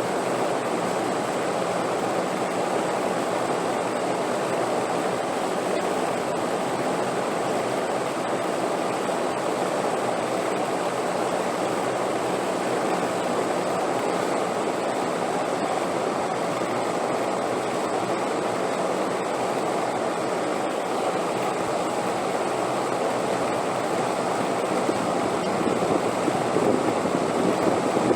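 Steady rushing wind, an even noise that swells a little near the end, with a faint steady high tone above it.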